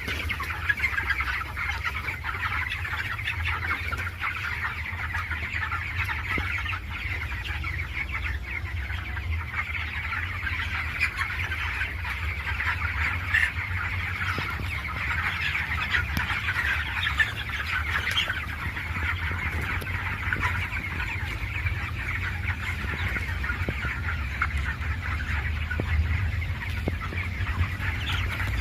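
A flock of many chickens in a poultry house clucking and chirping all at once, a dense continuous chatter with no single call standing out. A steady low hum runs underneath.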